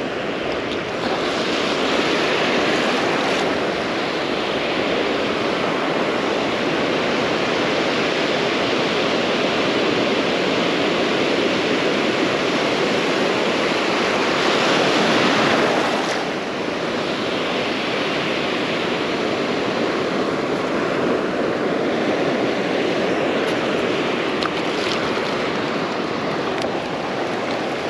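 Ocean surf washing onto a beach, a steady rushing with waves breaking louder twice: a couple of seconds in and about halfway through.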